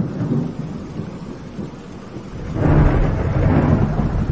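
Thunder rumbling, swelling loud about two and a half seconds in, over steady rain and sea waves.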